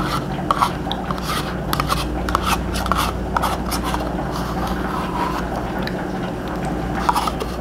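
A metal spoon scraping and clicking against the inside of a yogurt cup as it scoops, in a quick irregular run of small clicks that thins out after about three and a half seconds and comes back near the end. A steady low hum runs underneath.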